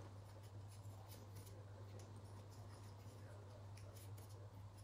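Faint scratching and small ticks of a red rubber gasket being peeled by hand off a plastic Dyson cyclone section, over a low steady hum.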